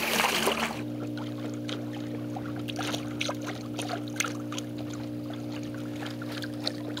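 Bixpy K-1 electric outboard motor humming steadily as it pushes an inflatable paddleboard, with water splashing and lapping against the hull. The splashing is loudest in the first second.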